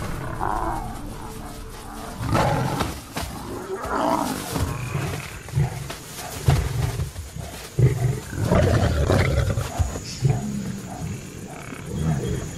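Lions growling in a string of short, low bursts, about a second or two apart, while bringing down and holding a giraffe.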